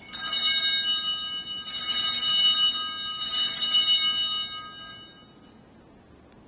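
Sanctus bells, the cluster of small altar bells, rung in three shakes at the elevation of the chalice after the consecration. The high, bright ringing dies away about five seconds in.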